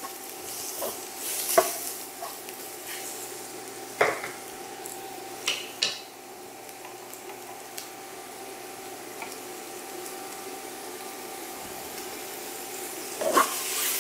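Sliced mushrooms, garlic and ginger sizzling in oil in a wok, with a spatula scraping and knocking against the pan a few times, mostly in the first six seconds and again near the end. A steady whine from the tabletop induction burner runs under the sizzle.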